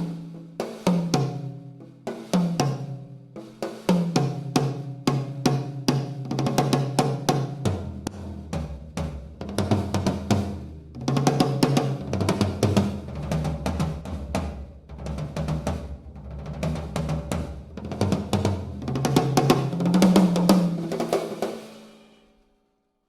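TAMA Starclassic Maple drum kit played in a sound check: snare and bass drum with fills around the toms, their pitch stepping down from the high toms to the floor tom and back up. The playing stops about a second before the end and the drums ring out.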